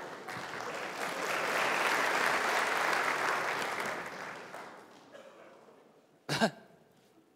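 Audience applauding, swelling and then dying away over about five seconds. Near the end comes a single brief sharp sound.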